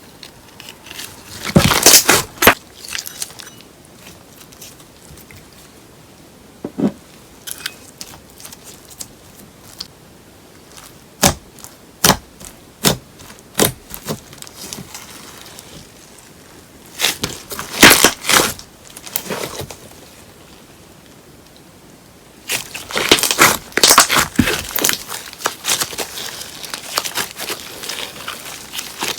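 Paper-clay slime being squeezed and worked by hand, crackling and popping in bursts: a cluster of crackles near the start, a string of separate sharp pops midway, and a longer, denser run of crackling near the end.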